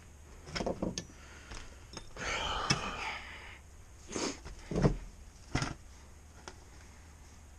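Workshop handling noises: a few short knocks and clicks, a breathy hiss for about a second in the middle, then three louder knocks from parts or tools being handled.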